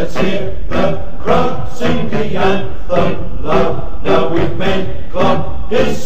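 Recorded football club theme song: a chorus of voices singing in a steady rhythm over instrumental accompaniment.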